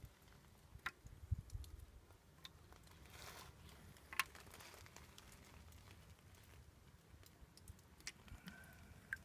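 Quiet background with a few faint, scattered clicks and ticks, the sharpest about four seconds in, and a brief soft hiss a little before it.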